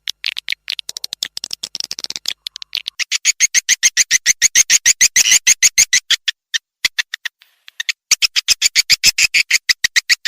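Swiftlet calls from a lure recording played to draw swiftlets into a nesting house: a rapid run of short chirps, about nine a second, that thins to a few faint clicks a little past the middle, then picks up again.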